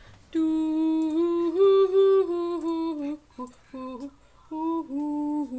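A person's voice humming a slow wordless tune: a long phrase of held notes stepping up and down, then two short notes and one more held note near the end.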